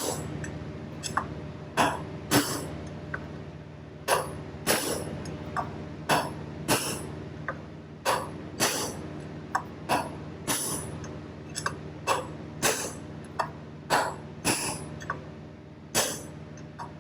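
Repeated hammer blows, metal on metal, knocking a bearing race out of a John Deere 24T baler's seized wheel hub, at roughly two strikes a second with brief pauses. A steady low hum runs underneath.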